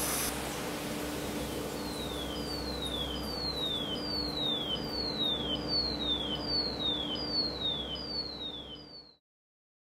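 Underwater speaker in a water tank playing a test signal of repeated falling chirps, about one every three-quarters of a second, growing louder as the air-bubble curtain that was damping it clears. The hiss of the bubbles cuts off near the start, a steady low hum runs beneath, and everything stops abruptly shortly before the end.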